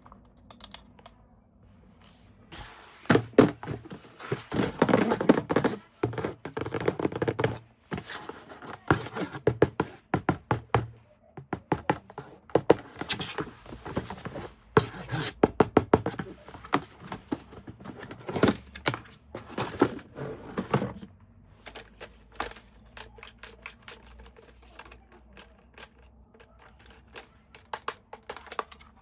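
Handling noise of a toy being unpacked: irregular clicks, knocks and thunks with some crinkling of packaging, busiest for the first two-thirds and sparser near the end.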